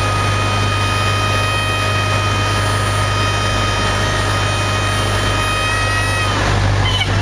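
Inside a Cessna 152's cockpit, the stall warning horn sounds a steady high tone over the drone of the engine and airflow. The horn rises slightly in pitch and stops about six seconds in, as the wing comes out of the stall. A brief click follows near the end.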